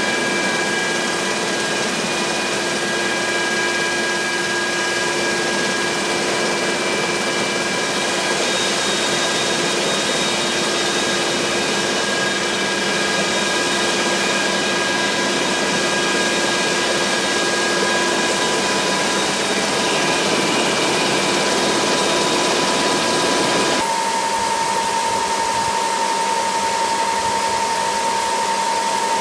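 UH-60 Black Hawk helicopter's twin turboshaft engines and rotor drive heard inside the cabin with the side door open: a loud, steady turbine whine with several held tones over a dense rushing noise. Near the end the sound changes abruptly to a thinner whine with one stronger tone and less low rumble.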